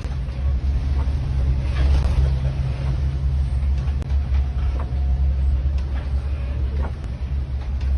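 Ferry's engines droning steadily, heard from inside the wheelhouse, with a few short knocks as the boat rides through rough water.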